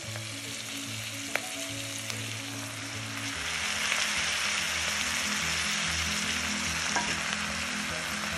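Chopped onions and green chilies sizzling in hot oil in a stainless steel wok as washed moringa leaves are tipped in and stirred with a wooden spoon. The frying hiss grows a little louder about three and a half seconds in, and there is a single sharp tap about a second in.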